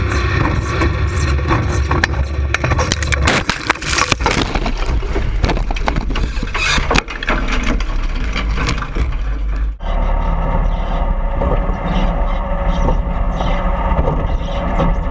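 A racing vehicle's engine running loud, with a stretch of crunching and scraping impacts from about three to seven seconds in as the vehicle rolls over. The sound changes abruptly near ten seconds in to steady engine noise.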